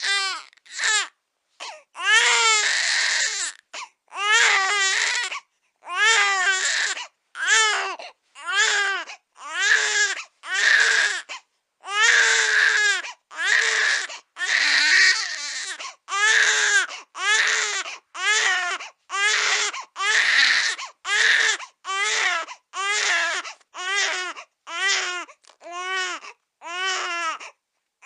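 Infant crying in a long run of separate wails, each about half a second to a second and a half long, with short gaps for breath between them. Toward the end the cries become shorter and more evenly spaced.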